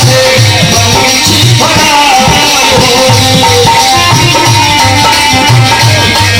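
Loud Bhojpuri dance music played through a DJ sound system, with a heavy bass beat repeating about twice a second under a melody.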